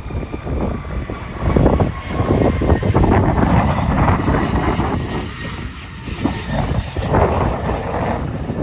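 Twin-engine jet airliner at takeoff thrust, a steady jet rumble loudest a few seconds in as it lifts off and climbs away, with wind buffeting the microphone.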